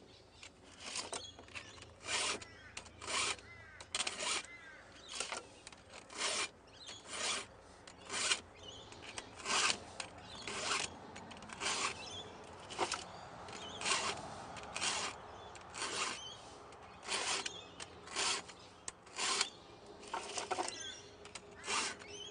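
Steel files rasping across the cutting teeth of a chainsaw chain in repeated short strokes, a little over one a second. A Stihl file guide is sharpening the cutters with its round file while its flat file takes down the rakers.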